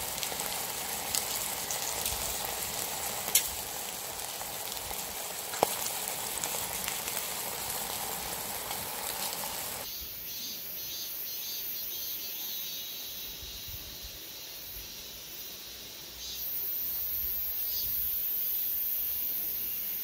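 Fish sizzling on a hot griddle, with a couple of sharp pops. About halfway through it gives way to a quieter outdoor background with a steady high hiss.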